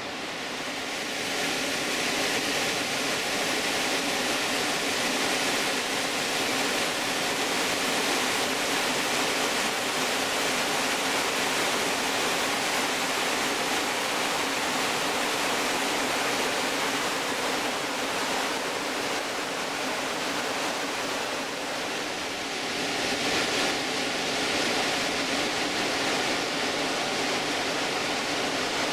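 Whitewater mountain river rushing over boulders, a steady, loud continuous rush of water.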